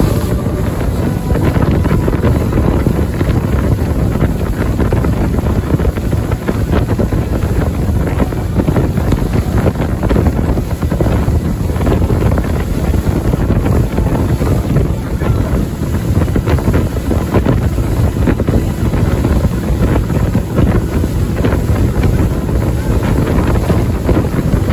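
Rigid inflatable boat running at speed: heavy wind buffeting on the microphone over the steady rush of water and spray along the hull and the drone of the outboard engine.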